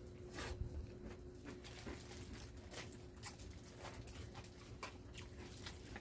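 Faint, scattered light clicks and rustles of people handling and eating roast chicken, over a low steady hum.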